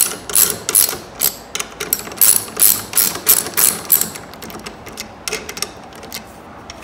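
Hand socket ratchet clicking as a 12 mm bolt is tightened on a steel bracket, in quick back-and-forth strokes for about four seconds, then only a few lighter clicks.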